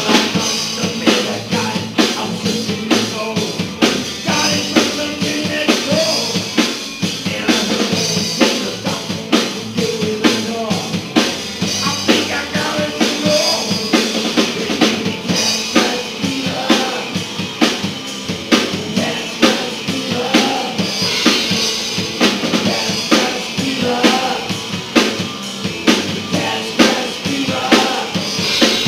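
Live rock band playing loudly, with a drum kit keeping a steady beat under electric guitars.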